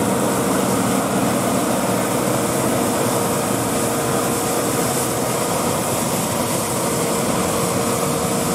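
John Deere S690 combine harvester running in the field: its engine and threshing machinery make a steady, loud drone. Some of the lower tones fade just after the start as it moves off.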